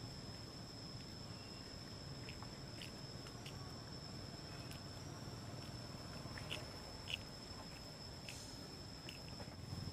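Steady high-pitched insect drone from the forest, with a fainter higher tone above it. Scattered brief chirps and clicks come over it, the two loudest a little after the middle.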